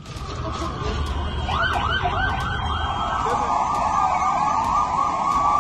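Emergency-vehicle sirens. About a second and a half in, a fast yelp starts, sweeping up and down about four times a second, over another siren held in a long, slowly rising wail.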